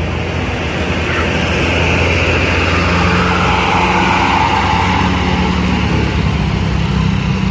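Large diesel bus engine running steadily, growing somewhat louder about two seconds in.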